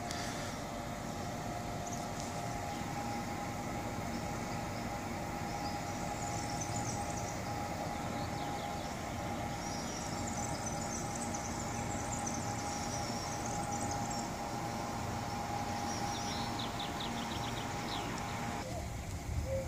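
Hyundai Rotem HRCS2 electric multiple unit giving a steady high hum over a low rumble. Short high chirps come and go above it.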